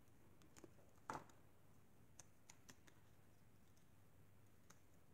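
Near silence with a few faint, short clicks and taps, the clearest about a second in, from paper and small tools being handled on a craft table.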